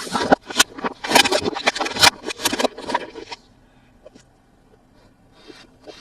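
Plastic toy packaging handled during an unboxing: crinkling and rustling with many sharp clicks for about three and a half seconds, then a pause, and a fresh rustle starting near the end.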